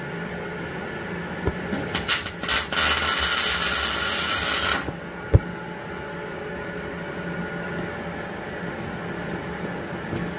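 MIG welder arc on thin sheet steel: a few short stuttering starts, then a steady hiss for about two seconds as the weld bridges a gap of about 4 mm over an aluminium backing block. A single sharp knock follows about five seconds in.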